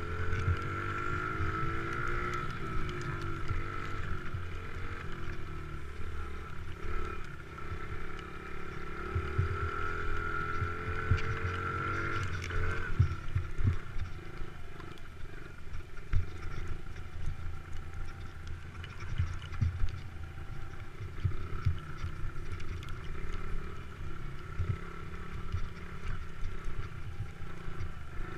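Motocross bike engine running under load on bumpy grass, the revs rising and falling and dropping back about halfway through. Low thumps are scattered throughout.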